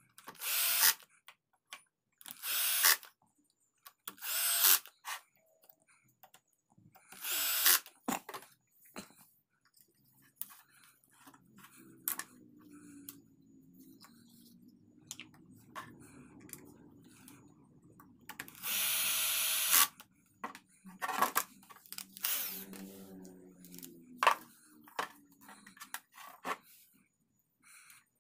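Cordless drill-driver driving screws into an electric wood planer's base plate, running in short bursts of under a second, several in a row at first and one longer run about two-thirds of the way through. Low knocks and handling of the planer on the bench in between.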